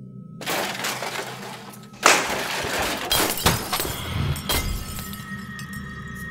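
A sudden loud crash about two seconds in, followed by further smashing and clattering, over a low droning music bed.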